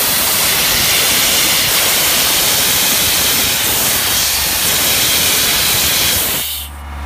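Compressed air blowing off from an Ingersoll Rand 185 towable air compressor: a loud, steady hiss that cuts off about six and a half seconds in, leaving the compressor's John Deere engine running.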